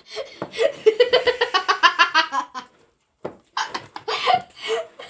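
A boy laughing hard: a fast run of ha-ha-ha pulses, a short break about halfway, then more laughter.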